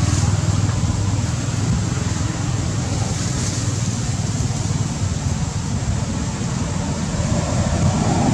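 Steady low rumbling noise with an even hiss above it and no distinct events, growing a little louder near the end.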